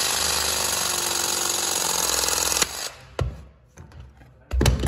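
Battery hydraulic press tool running through a press cycle, crimping a copper B-press fitting through an angle jaw: a steady whirr that stops with a click about two and a half seconds in. Then a sharp knock and, near the end, a louder thump.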